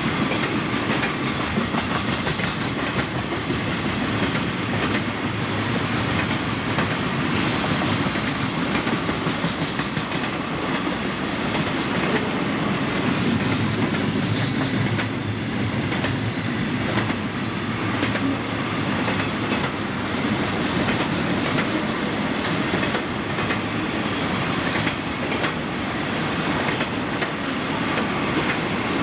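Freight train of double-stack container cars and trailer flatcars rolling past in a steady rumble, its steel wheels clicking irregularly over the rail joints.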